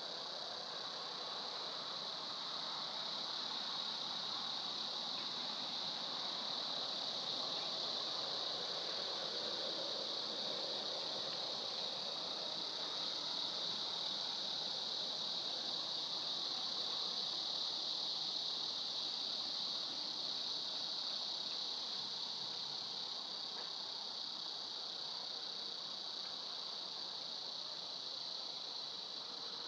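Steady outdoor background noise by a reedy pond: a constant high-pitched hiss over a softer, lower rush, with no distinct events.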